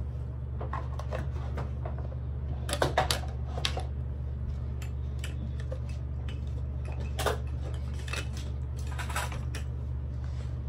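Toy kitchen cookware and utensils clinking and tapping in irregular short knocks, with a cluster of louder clatters about three seconds in, over a steady low hum.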